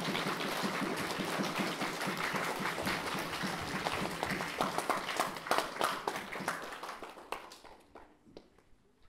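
A crowd of schoolchildren clapping, a dense patter of many hands, dying away about eight seconds in.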